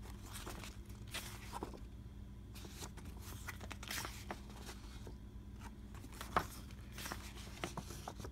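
Pages of a glossy board-game rule book being turned and handled: soft, scattered paper rustles and flicks, with a sharper flick about six seconds in.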